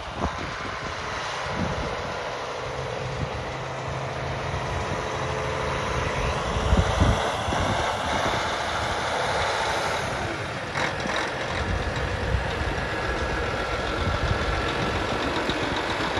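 John Deere 9620RX track tractor's diesel engine running steadily at idle, with wind buffeting the microphone in low gusts, strongest about seven seconds in.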